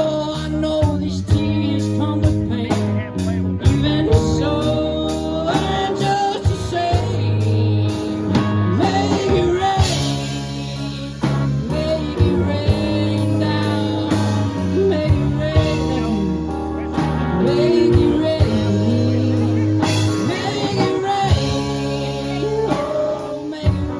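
A band playing a blues-rock song, with guitar, bass and drums keeping a steady beat and a voice singing over it.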